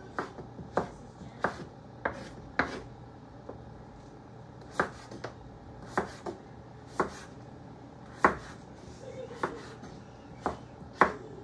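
Kitchen knife slicing green papaya into strips on a wooden cutting board: sharp knocks of the blade landing on the board, unevenly spaced at roughly one a second, with a short pause about four seconds in.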